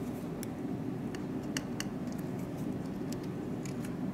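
Light, scattered clicks and taps of the Xiaomi Redmi 2's circuit board being handled and pressed into its plastic-and-metal frame, over a steady low hum.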